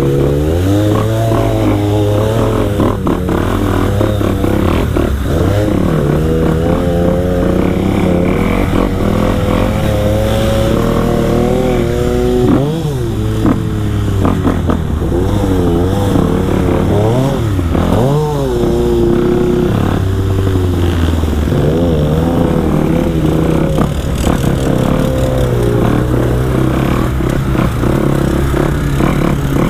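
Dirt bike engine under way, its pitch rising and falling as the rider works the throttle and shifts gears, with a few quick up-and-down rev sweeps about halfway through.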